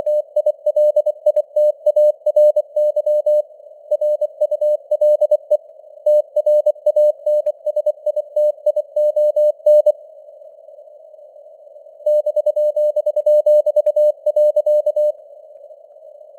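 Morse code (CW) sent at 24 words per minute as a keyed beep tone, over steady hiss that simulates radio-band noise. The keying pauses for about two seconds past the middle and stops about a second before the end, leaving only the hiss.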